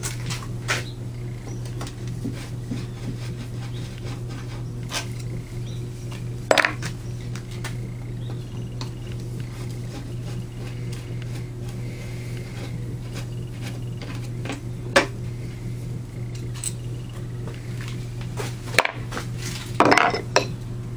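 A handful of sharp metallic clicks and clinks as a hand tool works the screws holding the governor bracket on a Hercules 2½ HP engine's cast-iron block; the loudest come about six seconds in and near the end. A steady low hum runs underneath.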